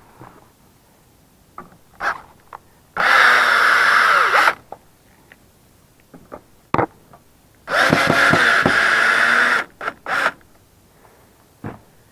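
Power drill run in two spells of about a second and a half and two seconds, a steady motor whine, with a few small clicks and knocks between.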